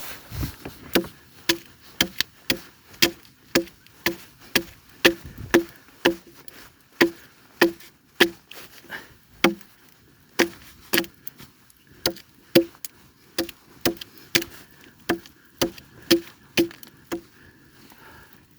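Wood being chopped: a steady run of sharp chopping strikes, about two a second, that stops shortly before the end.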